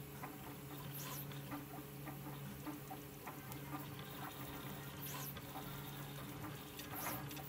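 Prusa i3 MK3 3D printer running a print: a steady hum from its fans, with stepper motors chirping and clicking through short print-head moves. Three brief high swooping whirs come about a second in, about five seconds in and near the end.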